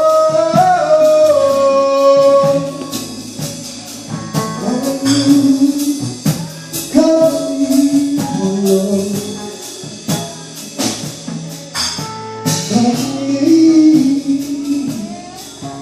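Live gospel song: a voice sings long, gliding held notes over a band with a steady drum beat.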